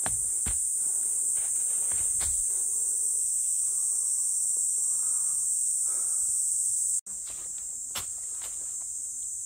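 Steady high-pitched chorus of summer insects, with a few light knocks underneath; it breaks off for an instant about seven seconds in and resumes a little quieter.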